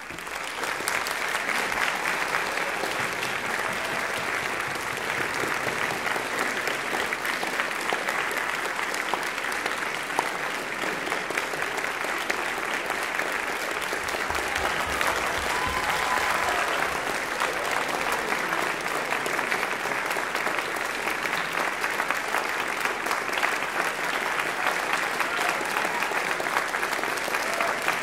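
Audience applauding, swelling up quickly at the start and then holding steady.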